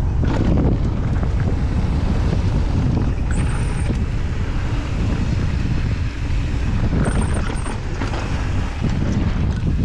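Mountain bike descending a dusty gravel downhill trail at speed: wind rushing over the microphone and knobby tyres rolling over dirt and gravel in a steady loud rumble, with short knocks and rattles from the bike over bumps.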